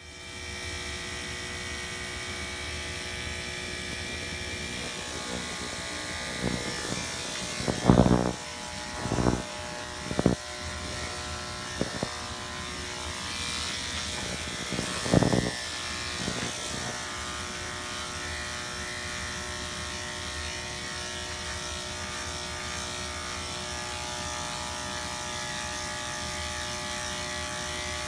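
Corded electric pet-grooming clipper running with a steady buzz as it shaves a toy poodle's coat. A handful of short, louder pulses come through in the middle.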